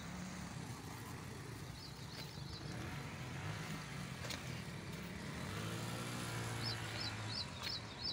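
Engine noise from road traffic, one vehicle swelling louder and passing about six to seven seconds in. A small bird chirps in short runs of quick rising notes about two seconds in and again near the end.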